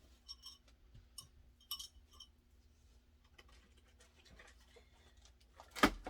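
A few light clicks with a slight ring in the first two seconds, then one louder knock near the end, over a faint steady hum.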